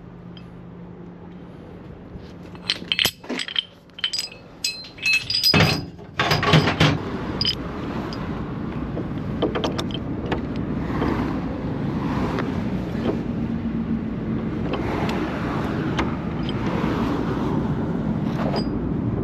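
Several sharp metallic clinks and clanks of steel towing gear being handled. About seven seconds in, these give way to a vehicle driving, with steady engine and road noise that slowly grows louder.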